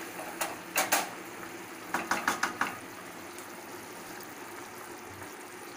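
Metal cookware and utensils clinking and knocking as a pan is handled on the stove: two sharp clinks within the first second, a quick run of clinks around two seconds in, then only a faint steady background hiss.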